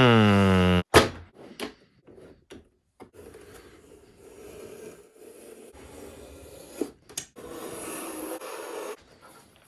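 A loud tone rising slightly in pitch cuts off abruptly just under a second in, likely the end of the video's music. Then come a few knocks and a steady rubbing and shuffling as materials are handled on a work surface, with a louder knock about seven seconds in.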